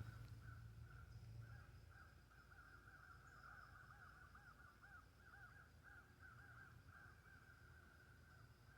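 Faint animal calls: a long run of short rising-and-falling notes, repeated rapidly, over a steady high thin hum like insects.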